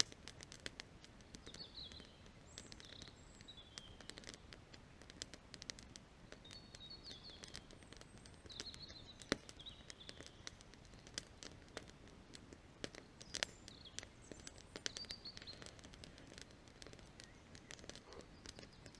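Campfire crackling with scattered sharp pops, the loudest about nine and thirteen seconds in; the dry wood burning is, by the fire-maker's guess, beech. Small birds sing short chirping phrases in the background.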